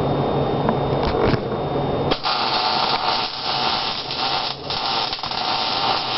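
Electric arc welder laying a tack weld: a dense, flickering hiss that starts about two seconds in and cuts off abruptly at the end, with a low hum and a few clicks before it.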